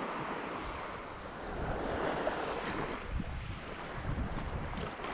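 Small waves washing up on a sandy shore, one wash swelling and easing off in the first half, with wind rumbling on the microphone.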